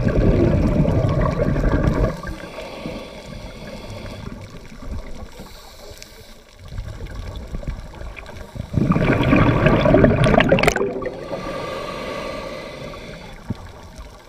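Underwater sound of a scuba diver breathing through a regulator: two bursts of exhaled bubbles, one at the start and one about nine seconds in, with quieter water noise between them.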